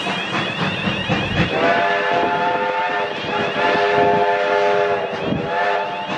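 Steam whistle of Victorian Railways A2 class 4-6-0 locomotive 986 sounding three blasts, two long and a short last one, over the rumble of the moving train.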